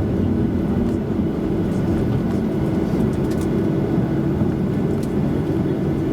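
Steady low rumble heard inside the passenger cabin of a Boeing 737-800 during landing: the sound of its CFM56-7B engines and the airflow, with a faint steady hum.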